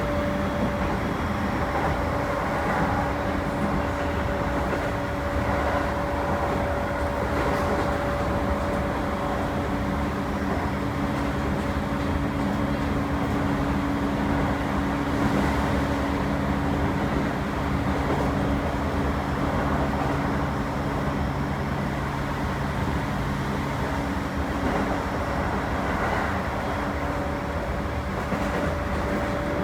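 Toei 10-300 series electric train running at steady speed: continuous running noise with a few steady motor tones. A lower tone joins through the middle stretch.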